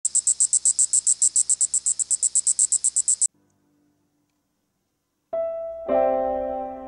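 A high-pitched, very even chirping trill like a cricket's, about eight pulses a second, cutting off suddenly after about three seconds. After a short silence, soft piano music begins near the end.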